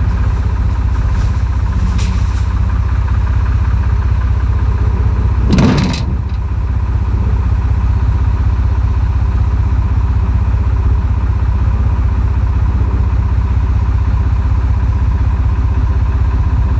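Tractor engine idling steadily, with one short, loud rush of noise about five and a half seconds in.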